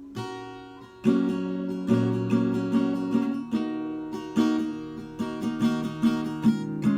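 Acoustic guitar strummed on its own in an instrumental passage between sung lines. A light strum comes at the start, then steady strumming from about a second in.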